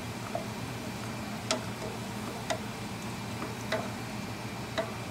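A spatula clicking against a stainless steel pot as peanuts are stirred in oil, a sharp click about once a second, over a steady low hum.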